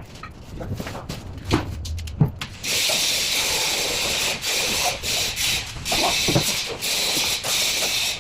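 A few knocks, then a loud hiss that starts suddenly about two and a half seconds in and keeps going, cut off briefly several times.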